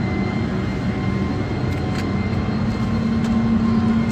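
Steady low rumbling hum with faint steady high tones held through it, like machinery or ventilation, and a couple of faint clicks about two seconds in.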